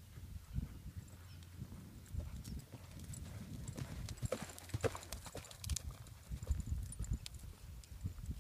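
Hoofbeats of a ridden horse cantering on sand: a rolling run of dull thuds. They grow loudest about four to five seconds in, as the horse passes close, with some sharp clicks among them, and fade as it moves away.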